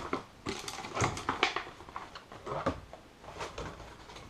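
Packaging being handled as a radio-control transmitter is lifted out of its box: a few short knocks and rustles of cardboard and plastic.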